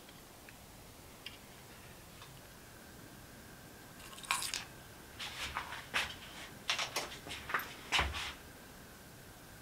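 Gas blowtorch burning steadily with a faint hiss and a thin whistle, while a small steel piece held in pliers is worked in the flame, giving a run of short metal clicks and taps from about four to eight seconds in.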